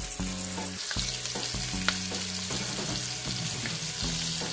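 Flour-dredged chicken thighs frying skin-side down in hot olive oil in a pan, a steady sizzle with a few small pops, at the start of browning.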